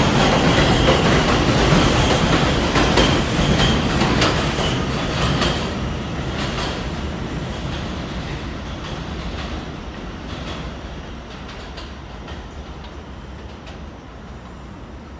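A Bombardier R142 subway train pulling out of the station and passing close by, its wheels clattering over the rail joints. Its sound then fades steadily as it moves away down the line.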